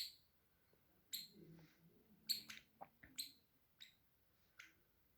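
Pet bird giving about six short, high chirps spaced irregularly, with faint low rustling between them.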